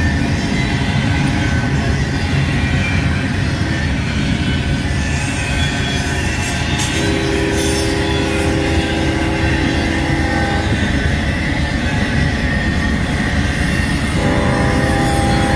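CSX double-stack intermodal freight train passing close by: steel wheels rumbling steadily over the rails under the container well cars. Steady squealing wheel tones join about halfway through, and a different set of tones comes in near the end.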